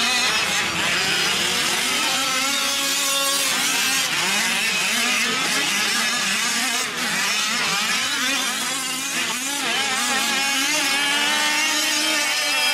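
Several 5th-scale gas RC trucks' small two-stroke engines running at once, their pitches rising and falling and overlapping as they rev and back off around the track.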